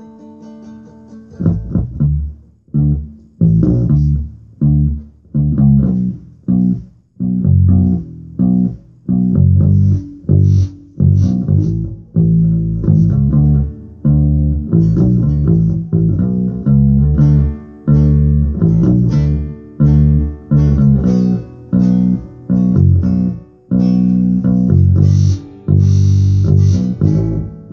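Electric bass guitar and guitar playing an instrumental passage without singing, with steady, rhythmic bass notes. The playing comes in loud about a second and a half in.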